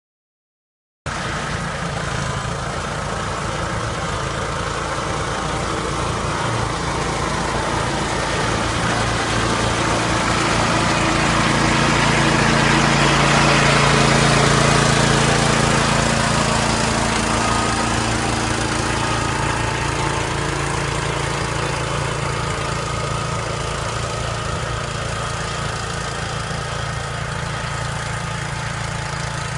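Tulip-topping machine running steadily as it works along the rows, cutting off the flower heads. Its engine and mechanism get louder as it comes close about halfway through, then fade slowly as it moves away.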